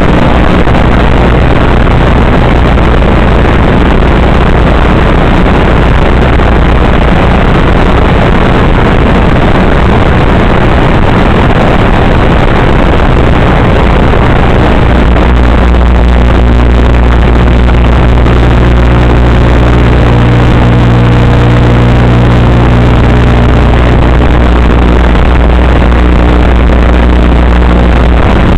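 FPV quadcopter's brushless motors and propellers droning steadily and loudly, the hum becoming clearer and more even from about halfway through.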